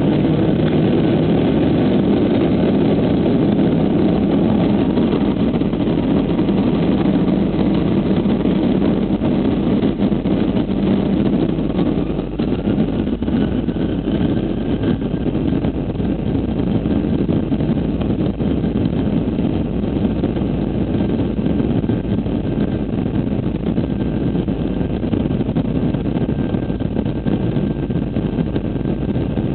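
Cabin noise of a twin-engine jet airliner speeding down the runway on its takeoff roll: a loud, steady rush of engine and rolling noise. A faint whine rises in pitch about twelve seconds in and then holds steady.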